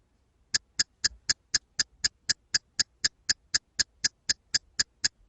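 Rapid, perfectly even ticking, about four ticks a second, starting about half a second in.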